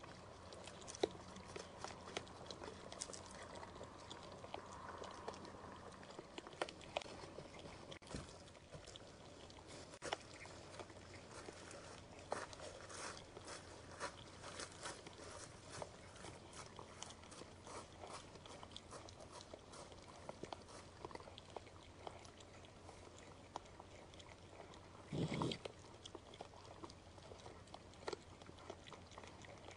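Faint, scattered crunches and sharp clicks from a white-tailed buck feeding at a bait tray and stepping through dry fallen leaves. There is one louder scuffing noise lasting about half a second, some 25 seconds in.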